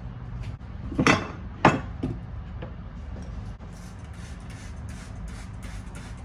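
Two loud clattering knocks of hard objects about a second in, half a second apart, with a smaller knock just after, over a low steady hum.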